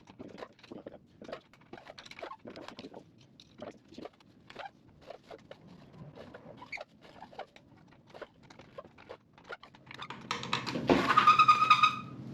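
A rusted, seized exhaust baffle being twisted inside an old Yamaha RD400 muffler: faint irregular scraping and clicking of rusty metal, several times a second. Near the end there is a loud, high squeal of steady pitch lasting about two seconds.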